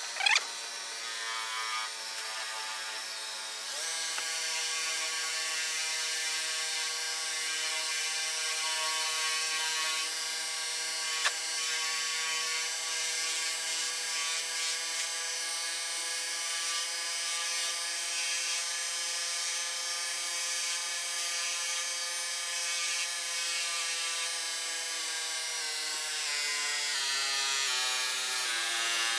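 Belt grinder's electric motor running steadily, spinning a wheel on its tool arm while a Bowie knife is held against it; a steady whine whose pitch steps down over the last few seconds. A few clicks near the start and one sharp click a little before the middle.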